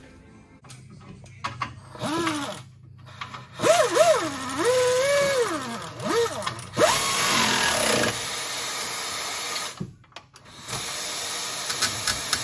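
Power tool motor running in several bursts. Over the first few seconds its pitch swoops up and down as the trigger is varied, and near the end it runs at a steady speed in two longer bursts with a short break between them.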